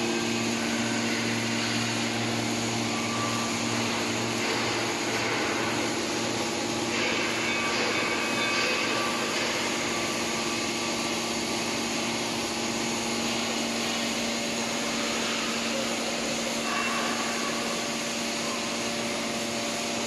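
Hydraulic power unit of a Y81Q-125 scrap metal baler running steadily, its electric motor and pump giving a constant hum, while the main cylinder is driven forward under the control handle.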